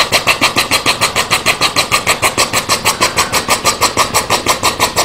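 1:12 scale live steam engine running under load, driving a belt-driven generator: rapid, even exhaust chuffs, about eight a second, over a steady high whine.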